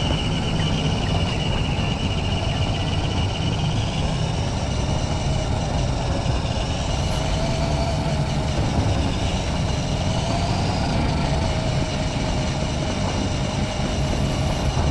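RC Land Rover Defender scale truck's motor and gears whining as it drives, over a steady rumble, heard up close from on board. The whine drifts up and down in pitch with the throttle.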